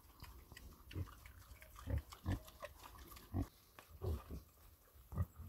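Young pigs grunting while feeding at a trough: short, low grunts at irregular intervals, about seven in all, with faint snuffling between them.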